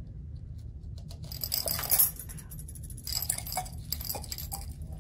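Aluminum pellets poured from a weighboat clink as they drop down a glass graduated cylinder into the water, in quick runs of small clinks. The busiest and loudest run comes about two seconds in, and a second run follows from about three to four and a half seconds.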